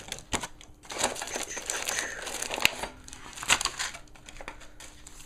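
Crinkling of the plastic and foil wrappers on trading card booster packs as they are handled, with a few sharp clicks and rustles coming and going.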